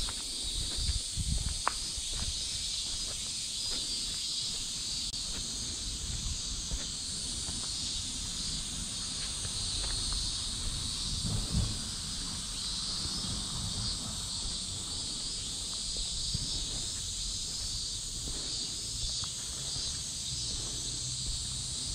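A chorus of cicadas singing steadily at a high pitch, with footsteps thudding faintly underneath.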